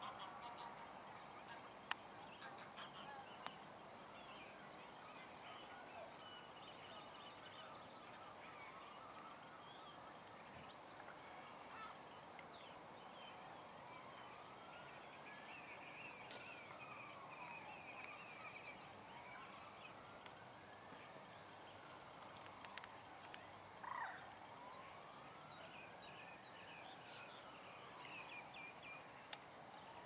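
Faint outdoor background with small birds chirping, and from about halfway a distant siren wailing slowly up and down, several cycles in a row.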